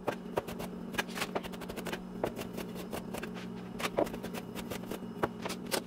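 Kitchen knife chopping broccoli on a cutting board: a run of quick, irregular knocks as the florets are diced into small pieces.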